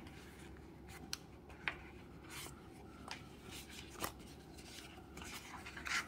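Fingers picking at a camera quick-release mount seated in the insert of its small cardboard box and turning the box over: a handful of faint, scattered clicks and brief rubbing noises.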